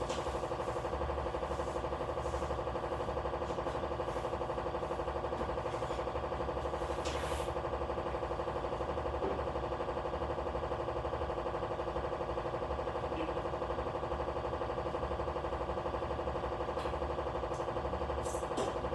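A steady mechanical hum at an even level, with a short scrape about seven seconds in and a few light clicks near the end.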